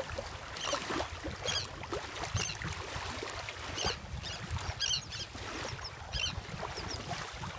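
Wind buffeting the microphone over shallow shore water, with short high chirping bird calls repeating about once a second.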